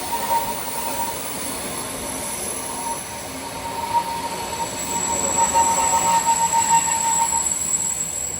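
Flåm Railway train running on the rails, its wheels giving a steady high-pitched squeal over the running noise, growing louder about halfway through.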